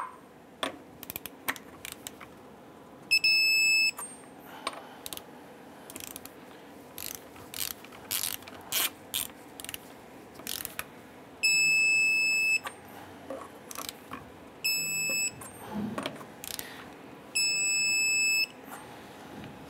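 Torque wrench tightening lug nuts to 135 foot-pounds: sharp ratchet clicks, and four high beeps, most about a second long, as the wrench signals that each nut has reached the set torque.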